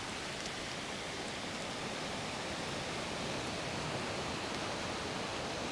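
Shallow creek water running over rocks: a steady, even hiss with no separate events.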